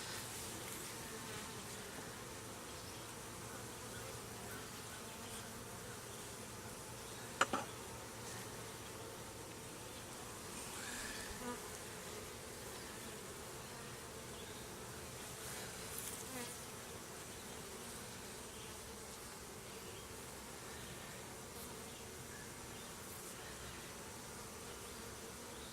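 Honeybees buzzing around an open hive as a steady hum. A sharp click about seven seconds in, with softer rustles later.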